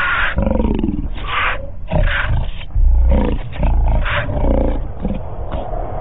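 Big cats snarling and roaring in a fight as a lion attacks a cheetah: harsh, rasping bursts about once a second over a deep rumbling growl.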